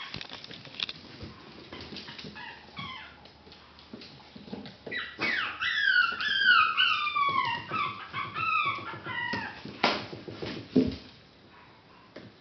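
Chihuahua puppies whining and yelping: a rapid series of short, high cries that slide down in pitch, densest in the middle, over light clicks. A sharp click and a dull thump come near the end.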